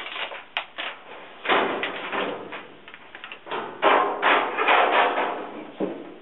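Dryer drum being handled and fitted into the cabinet: a few sharp clicks and knocks, then two longer spells of scraping and rattling, with a knock near the end.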